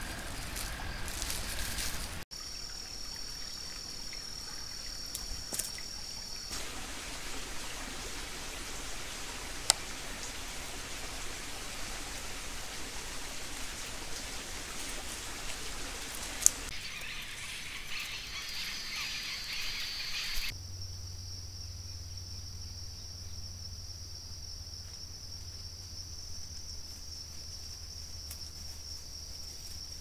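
Night-time outdoor ambience picked up by trail cameras: a steady high-pitched trill in some stretches and an even hiss in others, changing abruptly at each cut between clips. There are two sharp clicks, one about ten seconds in and one a little past the middle.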